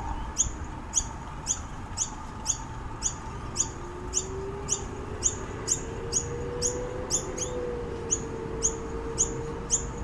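Noisy miner giving a short, sharp, high call over and over at an even pace, about two calls a second.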